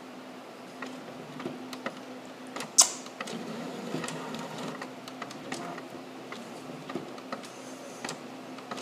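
Printer running a print job, whirring with irregular mechanical clicks, and one sharp click about three seconds in.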